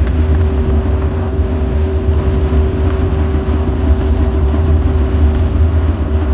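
Steady low rumble of running workshop machinery, with no separate strikes.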